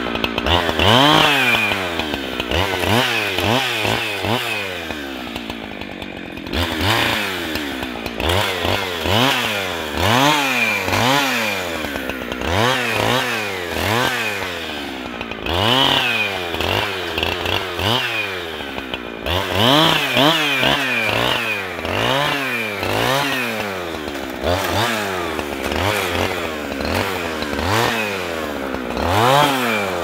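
Two-stroke chainsaw revving up and down over and over as it cuts branches, the engine pitch rising and falling about once a second. Twice, about six seconds in and again near twenty seconds, it briefly drops back.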